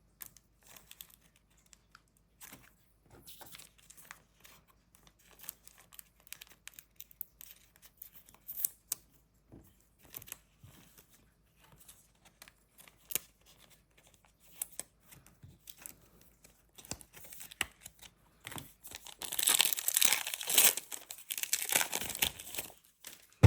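Light clicks and shuffles of trading cards being handled, then, near the end, a loud crinkling and tearing of a foil trading-card pack wrapper being ripped open.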